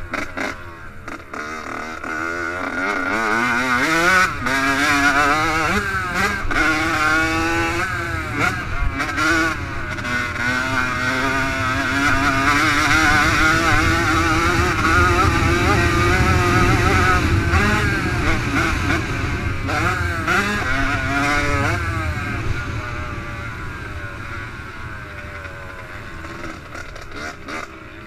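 Yamaha YZ85 two-stroke engine being ridden hard, revving up and down over and over as the rider works the throttle and gears. It eases off and runs quieter near the end.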